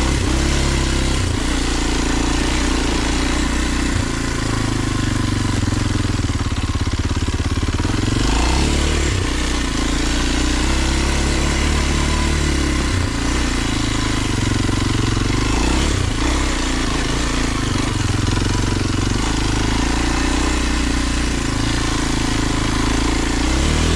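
Kawasaki KLX230 dual-sport motorcycle's single-cylinder four-stroke engine running under load at trail pace, its note climbing and dropping a few times with the throttle and gear changes.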